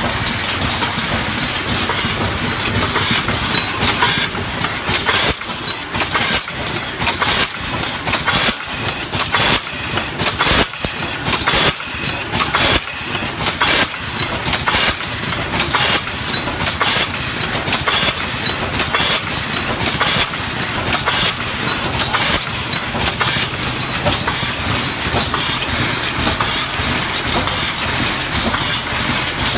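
Automatic aerosol can filling line running: a steady hissing machine noise with rapid, irregular clacks and knocks from the air-driven filling heads and the metal cans moving along the conveyor.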